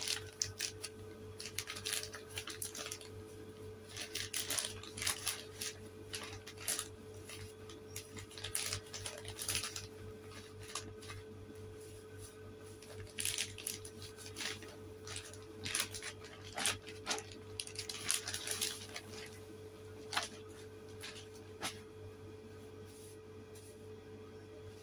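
Plastic shopping bag and wrapping crinkling and rustling in irregular bursts as they are handled, folded and unwrapped by hand, over a steady faint hum.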